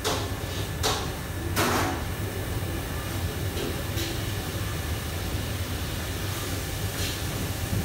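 Commercial kitchen background: a steady low rumble from the extraction hood and fans, with a few short clatters of utensils and cookware and a brief louder rush about one and a half seconds in.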